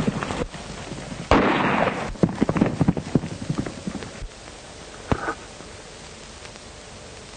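Gunfire on an old film soundtrack: a loud shot about a second in, a quick run of sharp cracks after it, and one last single shot about five seconds in, over steady soundtrack hiss.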